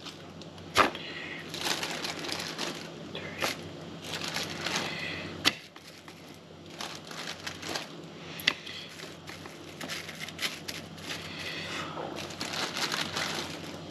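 Cling film crinkling and rustling as it is handled around a plastic mould, with a few sharp clicks and taps.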